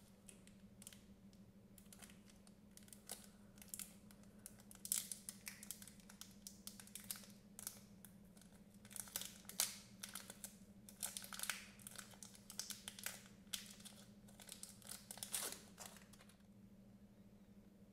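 Paper wrapper of a piece of bubble gum being peeled open and unfolded by hand: quiet, irregular crinkling and crackling that stops about a second and a half before the end.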